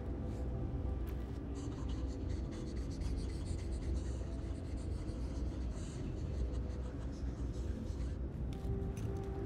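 Low, droning film score of held tones over a rumble. A dense scratchy, crackling texture runs over it from about one and a half seconds in until near the end.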